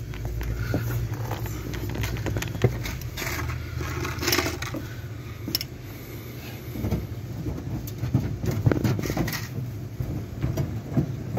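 Scattered knocks and clicks of work under a truck as the fuel tank is pushed back up into place, over a steady low rumble.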